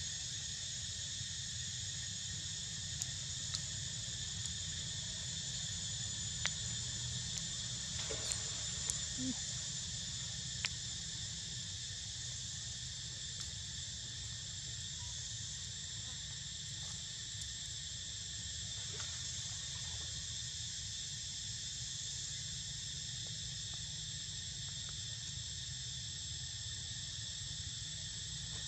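Steady, shrill chorus of insects in several high-pitched bands, over a low steady rumble, with a few faint clicks during the first ten seconds.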